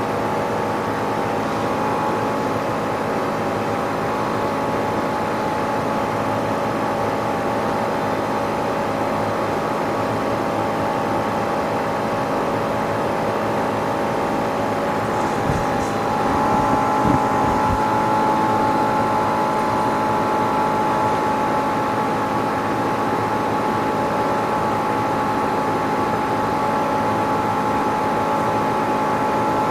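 Steady mechanical hum of an LCD screen separator machine running, with several fixed tones. About 16 seconds in there are a few short clicks and knocks, and the hum gets slightly louder with an added higher tone.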